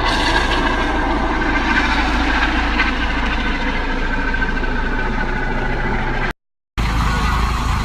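Helicopter running, a loud steady rotor and engine noise with a heavy low rumble. It cuts out briefly about six seconds in, then resumes.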